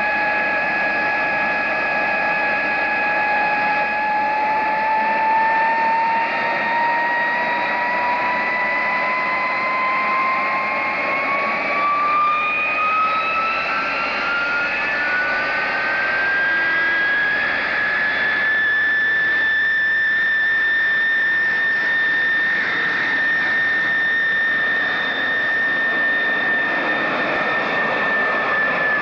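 de Havilland Vampire's jet engine whining, its pitch rising smoothly over about fourteen seconds as it is throttled up, then holding a steady high whine as the jet begins to taxi. A steady rush of exhaust runs under the whine.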